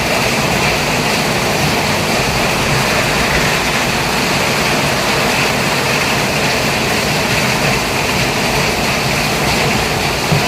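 Steady rumble and hiss of a moving vehicle, with no distinct events.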